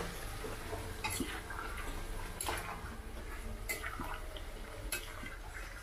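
Spatula stirring watery chicken curry in a metal kadai, knocking against the pan four times about a second apart, with the liquid sloshing between the knocks.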